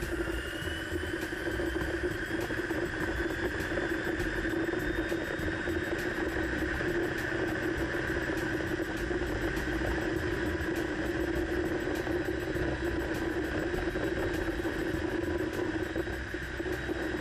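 Electric motor and propeller of an eSpyder electric ultralight running under power, a steady hum with a thin high whine that rises in pitch over the first six seconds and then holds.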